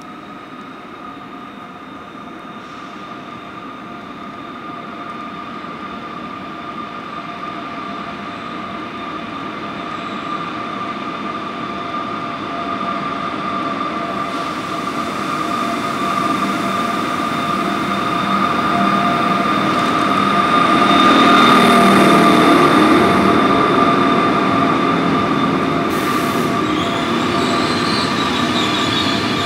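Passenger train arriving at a platform, its coaches rolling slowly past, with a steady high-pitched squeal over the rumble. The sound grows louder as the train comes close and is loudest a little over two-thirds of the way through.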